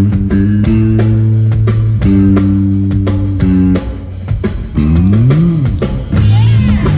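Electric bass guitar playing a solo through a concert PA: a run of held notes, then a note slid up and back down about five seconds in.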